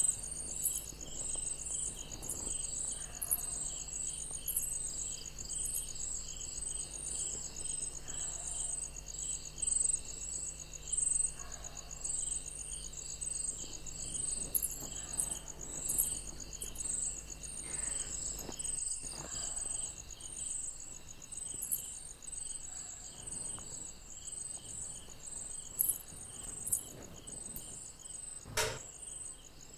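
Crickets chirping steadily in a rapid, even rhythm, with a single knock about a second before the end.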